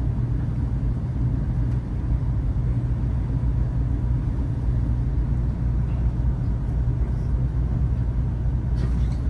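Steady low rumble of cabin noise inside a Taiwan High Speed Rail 700T passenger car.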